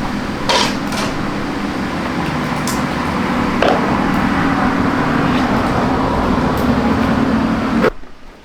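Attila scooter engine running steadily, with a few sharp clicks and knocks from work on the bike, then cutting off abruptly near the end.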